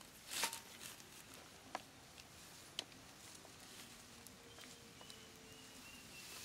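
Dry straw rustling as hands handle a freshly gutted rat carcass, with one short crackling rustle about half a second in and two sharp clicks around two and three seconds in.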